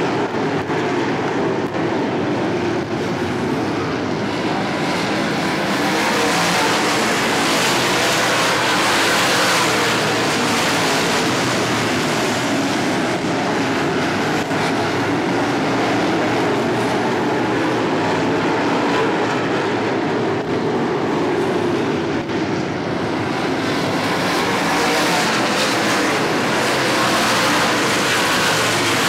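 Several UMP dirt modified race cars' V8 engines running hard around a dirt oval, a loud continuous roar of many engines at once. It swells louder a few times as the cars come nearer.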